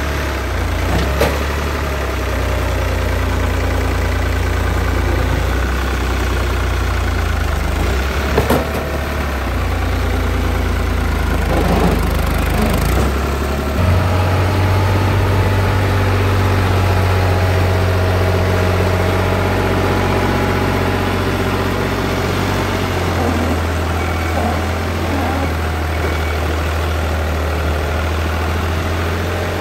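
Heavy diesel engine running steadily, its low hum rising in pitch about halfway through and easing a little later, with a few sharp knocks over it.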